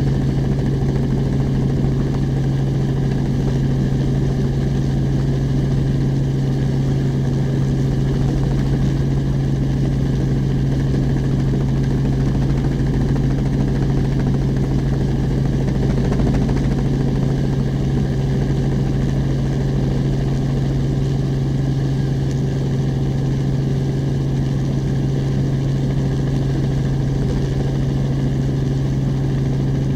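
Steady engine and rotor drone from a helicopter filming from overhead, with a strong low hum that holds level throughout.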